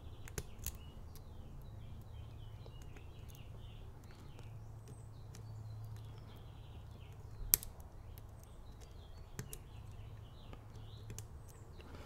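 Quiet lock-picking: a steel probe ticking and clicking against the pins of the Master Lock Street Cuffs' tubular lock as it moves from pin to pin, testing whether they are still springy. There are a few small clicks, the sharpest about seven and a half seconds in, over a low steady hum and faint high chirps.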